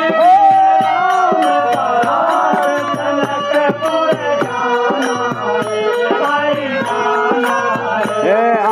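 Devotional kirtan: a man sings a chant-like melody into a microphone over a dholak drum and small brass hand cymbals (manjira) keeping a steady beat.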